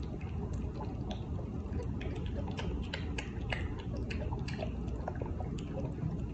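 Kitten suckling milk from a feeding bottle: quick, irregular wet clicks and smacks, several a second, over a steady low rumble.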